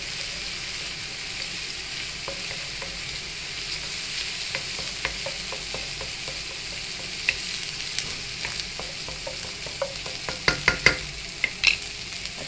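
Wooden spatula stirring and scraping ginger frying in oil in a stainless steel kadai, over a steady sizzle. A quick run of sharp knocks near the end.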